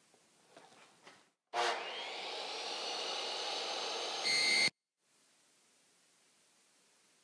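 DeWalt electric miter saw with a 60-tooth carbide blade starts up suddenly, its motor whine rising in pitch as it spins up, and runs steadily; about three seconds in the blade bites into the aluminium header track with a louder, high-pitched ringing before the sound cuts off abruptly.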